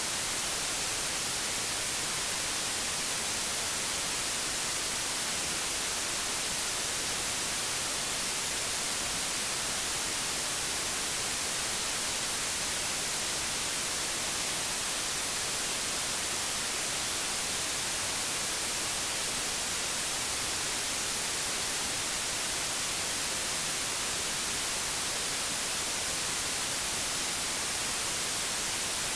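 Old analogue television static: a steady, even hiss, brightest in the high frequencies, with no change in level.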